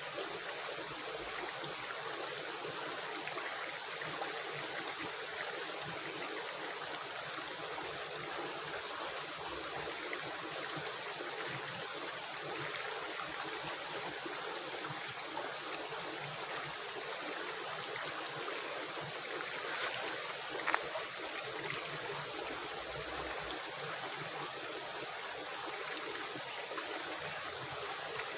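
River water running and gurgling steadily, with one brief sharp click about twenty seconds in.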